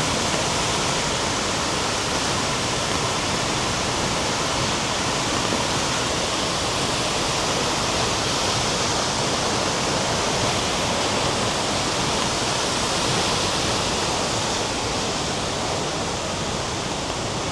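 Steady rushing of a waterfall's falling water, with rain coming down, an even roar that doesn't let up.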